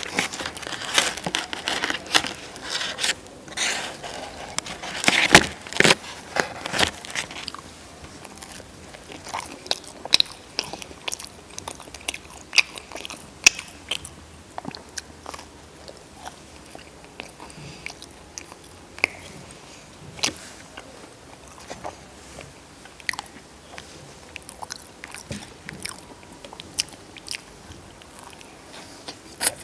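A person biting into and chewing crunchy food close to the microphone. There are dense, loud crunches for the first several seconds, then slower, softer chewing clicks.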